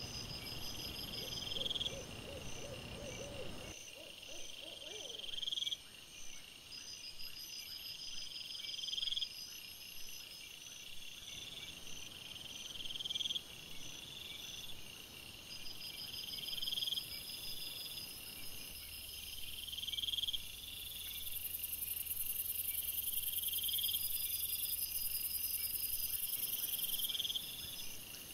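Crickets chirping in trains of rapid pulses that repeat about every second and a half, several at different pitches overlapping. A lower pulsing sound in the first four seconds stops abruptly.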